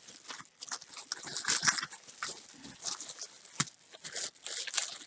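Loose costume jewelry, metal chains, pins and pendants, clattering and clinking as it is tipped out and pushed about on a tabletop: a run of irregular sharp clinks and rattles.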